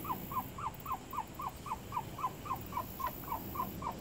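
Puppy whimpering: a steady run of short whines, about four a second, each rising and then falling in pitch.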